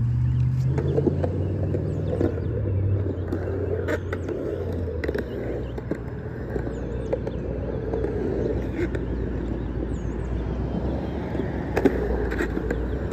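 Skateboard wheels rolling and carving on a concrete bowl, a steady rumble, with sharp clacks of the board about four and five seconds in and again near the end. Faint bird chirps sound over it.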